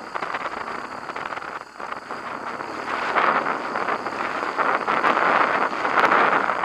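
BMW HP2 Enduro's boxer-twin motorcycle engine running under way on a dirt track, mixed with heavy wind buffeting on the camera microphone. The noise drops off about two seconds in, then builds steadily louder.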